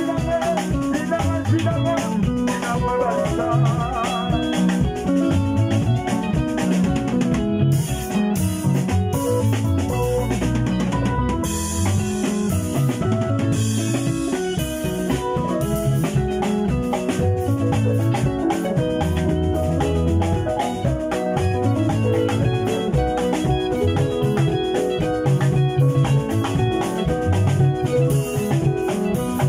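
Live instrumental band music: a Yamaha Motif ES7 keyboard and electric guitars playing over drums, with a deep bass line and a steady beat.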